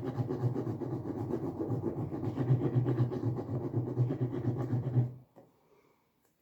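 A pen colouring in with quick back-and-forth scratchy strokes, stopping about five seconds in.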